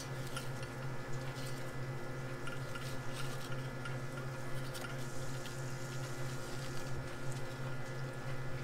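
Knife cutting into a hanging swordfish's flesh, faint wet squishing with scattered small ticks, over a steady low machine hum.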